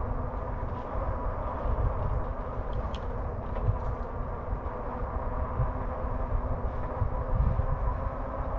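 Riding a RadRover Step-Thru 1 fat-tyre electric bike at a steady pace: wind rumbling on the microphone over a steady hum from the hub motor and tyres.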